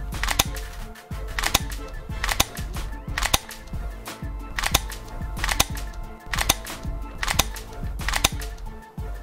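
UHC CQB dual-power airsoft electric gun (AEG) firing single shots on semi-automatic, about nine sharp cracks roughly a second apart. Background music runs underneath.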